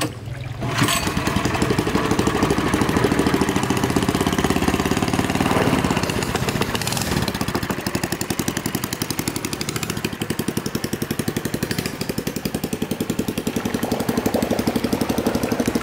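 Small air-cooled single-cylinder petrol engine of a long-tail boat motor. About a second in it opens up from a quieter run, then runs steadily under load with an even pulsing as the boat moves off.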